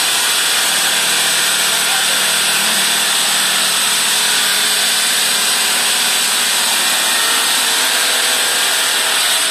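Water-cooled circular stone-cutting saw cutting through a slab of natural rough stone: a loud, steady, hissing grind of the blade in the stone over the hum of its belt-driven electric motor.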